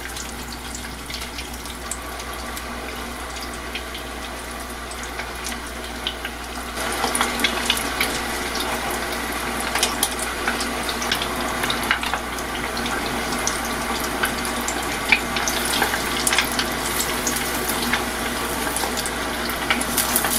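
Pork cartilage karaage deep-frying in a pot of oil: a steady sizzle full of small crackles, growing louder about seven seconds in.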